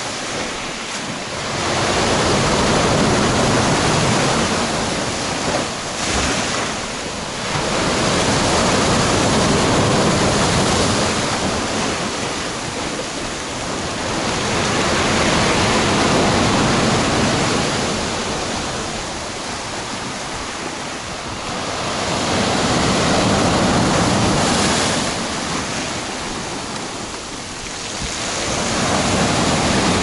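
Storm waves on the sea breaking and washing up the shore. The surf rises and falls in long surges, about one every six or seven seconds.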